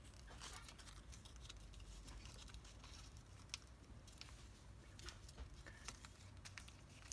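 Near silence: faint ticks and crinkles of origami paper being creased and folded by hand, over a low steady hum.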